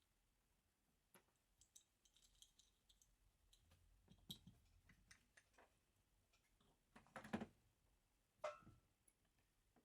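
Faint, scattered clicks and light taps of small airsoft pistol parts being handled, with a louder cluster of clicks about seven seconds in and a short knock with a brief ring just after.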